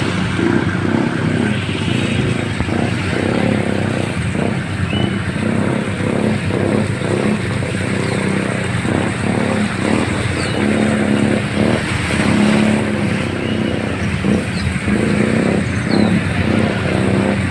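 A motorcycle engine running steadily, with an even hiss of heavy rain over it.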